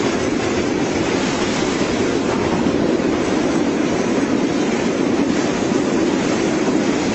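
A train running on its rails, a steady rumbling noise of wheels and cars.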